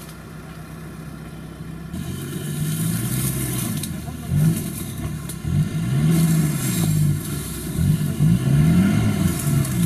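Off-road 4x4's engine running steadily, then revved up and down over and over from about two seconds in, getting louder.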